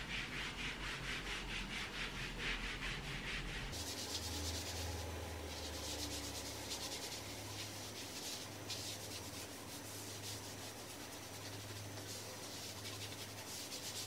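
Self-tanning mitt rubbed quickly back and forth over the bare skin of a leg: a run of quick, even rubbing strokes.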